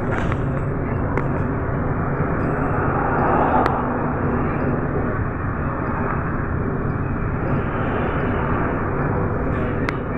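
Inside a moving MAZ-107.466 city bus: steady engine and road noise with a low drone, swelling slightly a few seconds in, and a few light rattling clicks.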